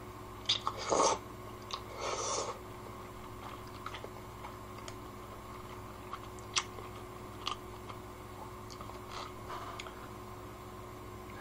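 Noodles slurped from a bowl in two short bursts about one and two seconds in, then chewing with scattered faint clicks.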